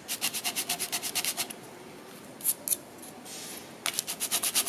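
Wooden fork tines sanded back and forth on sandpaper, a quick rasping stroke about seven times a second. The strokes stop about a second and a half in, leaving a couple of light scrapes, and start again near the end. The chipped tip is being ground back into a point.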